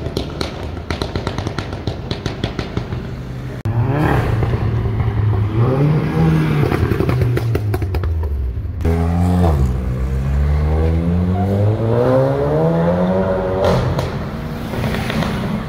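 Performance car engines and exhausts in a run of short clips: a rapid crackling and popping from an exhaust, then an engine revving up and down, then a car accelerating hard with its note climbing steadily before easing off near the end.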